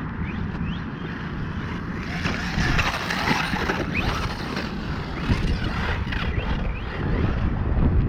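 Blackzon Smyter RC truck's electric motor, on a 3S battery, whining in short rising revs as it is driven, under steady wind noise on the microphone.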